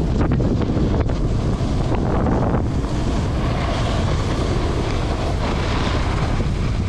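Wind buffeting the microphone during a snowboard run: a loud, steady rushing noise, heaviest in the low end.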